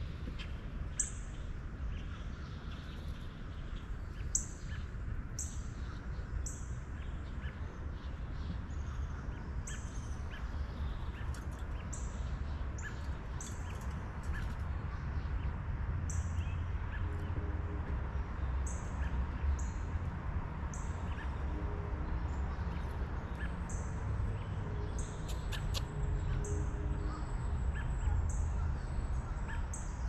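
Wild birds calling: short, very high chirps repeating about once a second, with a cluster of harsher calls a little before the end, over a low, steady rumble.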